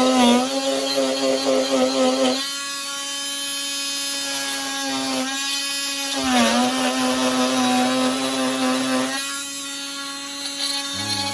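A handheld electric power tool's motor running steadily on wood. It gets louder in two stretches, and its pitch sags briefly twice as the tool is pressed into the work.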